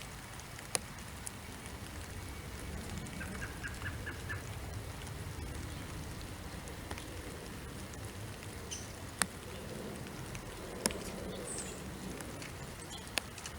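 Backyard ambience with a steady low rumble, a few sharp single ticks of raindrops beginning to fall, and short bird chirps, a quick run of them about three seconds in and faint high ones near the end.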